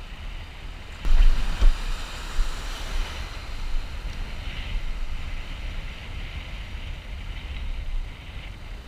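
Waves breaking and washing in the surf, with wind buffeting the microphone in low rumbling gusts that are strongest about a second in.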